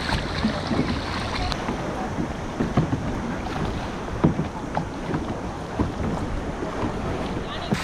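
Kayak paddling on the sea: wind on the microphone over moving sea water, with a few sharp splashes or knocks from the paddles at irregular spacing.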